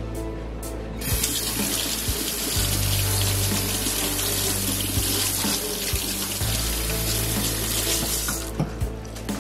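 Steady rush of running water, starting about a second in and stopping near the end, over background music.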